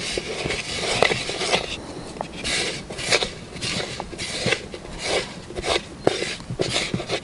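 Hands kneading stiff bait dough in a plastic bowl: irregular scraping and rubbing of fingers and dough against the plastic, a couple of strokes a second.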